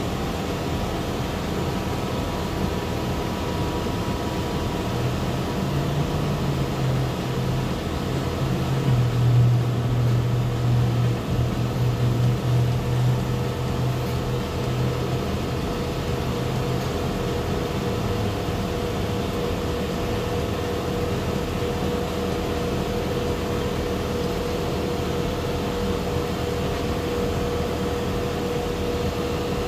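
Steady running noise of paint-shop machinery and air. A deeper hum comes in about five seconds in, is loudest around ten seconds in, and fades out near eighteen seconds. A steady higher tone grows stronger in the later part.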